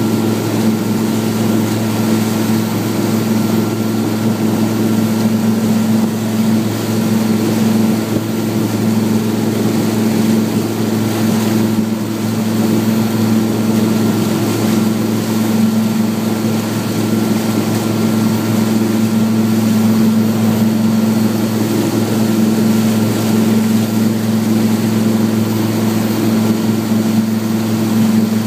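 Engine of an inflatable tender running at steady cruising speed, a constant drone at one pitch over the hiss of water and wind.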